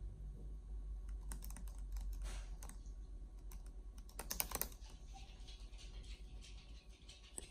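Scattered light clicks and taps, loudest in a quick cluster about four seconds in, over a steady low hum.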